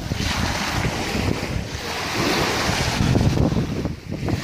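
Small sea waves breaking and washing up on a sandy shore, with wind buffeting the microphone; a brief lull about four seconds in.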